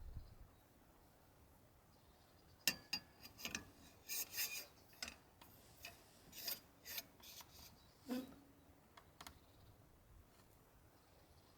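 A run of short, dry scraping and rubbing sounds with a few light clicks, starting about two and a half seconds in and stopping after about nine seconds.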